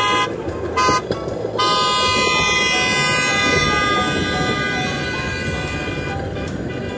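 Horn of a hi-rail pickup truck pulling away along the rails: a couple of short toots, then a long blast held for about five seconds, dropping slightly in pitch and fading as the truck moves off.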